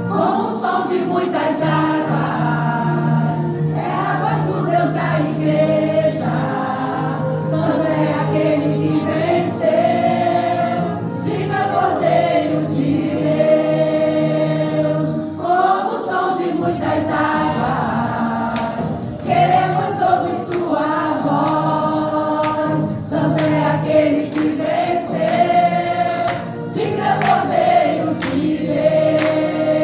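Church vocal group singing a gospel praise song together over a steady instrumental accompaniment.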